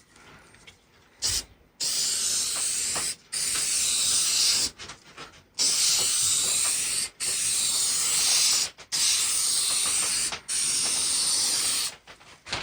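Hissing spray from a nozzle, released in six bursts of about a second and a half each, with short pauses between them.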